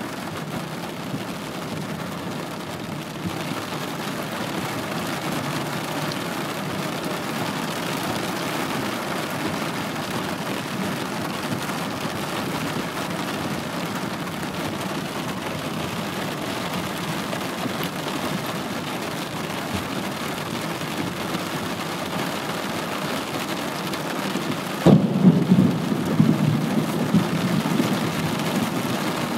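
Heavy rain pouring down steadily in a strong downpour. About twenty-five seconds in, a sudden loud low rumble breaks in and slowly fades.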